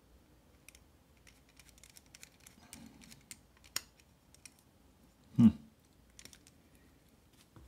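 Faint, scattered little clicks of a T8 Torx precision screwdriver working a small handle screw on a folding pocketknife, with one sharper click near the middle and a short louder knock about five seconds in. The screw is spinning in place instead of tightening.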